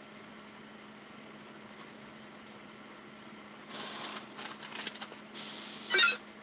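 Steady low hum in a truck cab, with some rustling a few seconds in, then a short, loud electronic chime near the end from the truck's onboard messaging unit, signalling an incoming company message.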